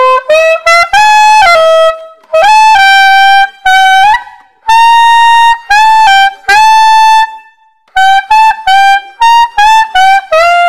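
Selmer Mark VI soprano saxophone being play-tested after cleaning and repair: a melody in short phrases of tongued notes with brief breaths between them, a run of quick short notes near the end, then a held note.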